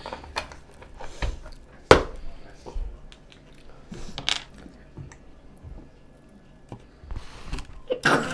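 Eating sounds: chewing and biting into Hot Cheetos-coated fried mozzarella sticks, with scattered small crunches and clicks and a sharp knock about two seconds in.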